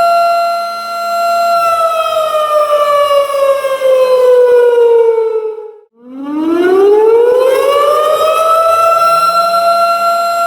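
Tornado warning siren wailing: a steady tone that slides down in pitch over about four seconds, dies away almost to nothing about six seconds in, then climbs back up to its steady tone.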